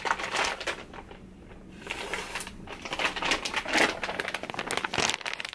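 Close rustling and handling noise: irregular crinkling, crackles and small clicks of something being handled right by the microphone, with a brief lull about a second in.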